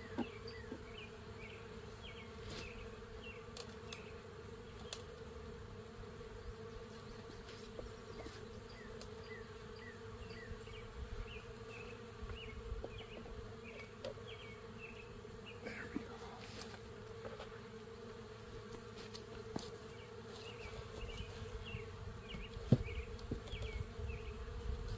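Honeybees buzzing steadily around an open hive, with a few light clicks of wooden hive parts being handled. Near the end a single sharp knock as the heavy, honey-filled wooden super is set down.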